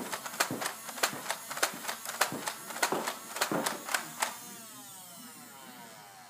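Nerf Hailfire blaster working: a series of sharp mechanical clicks, about three or four a second, over its electric motor, then a falling whine about four seconds in as the motor spins down.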